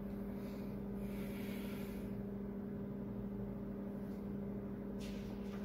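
Steady low hum with a fainter higher tone above it and light hiss: room tone, with a faint soft rustle near the end.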